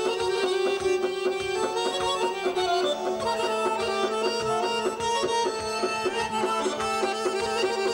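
Two Azerbaijani garmons (button accordions) playing a traditional folk tune together, a quick run of notes over a steady low drone.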